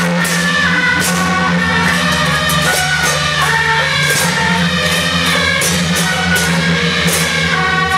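Traditional Taiwanese procession music, loud throughout: suona playing a piercing melody over repeated clashes of hand cymbals and a large hanging gong.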